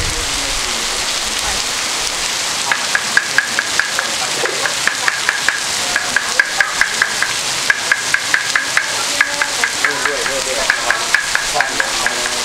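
Steady rain hiss. From about three seconds in, a quick, irregular series of sharp, high clicks joins it, a few each second with short pauses.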